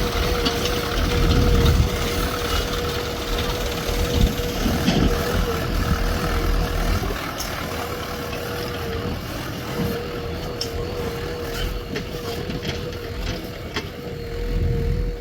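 JCB 3DX backhoe loader's diesel engine running under working load, its low rumble swelling a few times, with a steady high whine and a few short knocks near the end.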